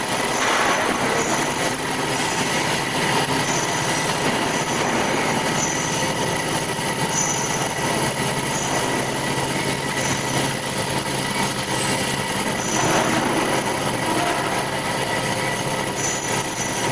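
Metal-cutting band saw running, a steady loud machine noise with high-pitched squealing tones that come and go every second or two.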